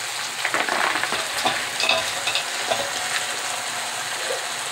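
Boiled raw-mango mixture sizzling in oil in an aluminium pot, with a steady hiss. From about half a second in come irregular scrapes and a few short clinks of a metal spatula against the pot as crumbled jaggery is tipped in.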